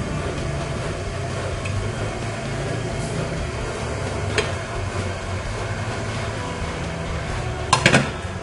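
Glass lid set down onto an aluminium steamer pot, a quick clatter of clinks near the end, after one light knock about halfway through. A steady low hum runs underneath.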